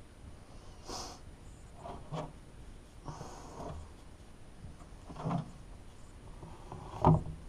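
A flat spreader scraping and smoothing two-part panel-bond adhesive over the sheet-metal firewall, in a few short strokes. A couple of light knocks follow, the loudest near the end.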